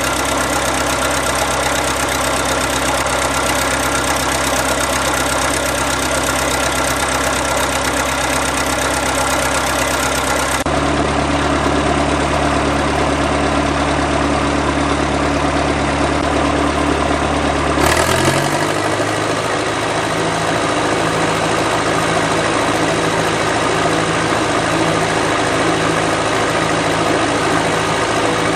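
Diesel engine of a Caterpillar 941 crawler running steadily. About ten seconds in its note changes, and at about 18 seconds the engine speed rises a little and then holds at the higher pitch; the owner finds it running good.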